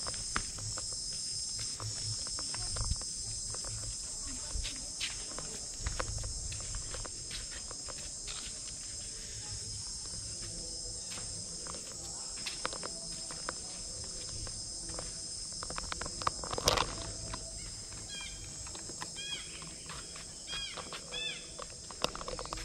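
Steady high-pitched drone of insects, with scattered clicks and a sharp knock about two-thirds of the way through. Near the end a bird gives a run of short repeated arching calls.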